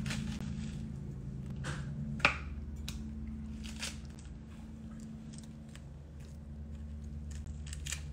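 A knife cutting into a whole pomegranate and hands pulling the fruit apart: a few short crunchy cracks and squishes, the sharpest about two seconds in, over a steady low hum.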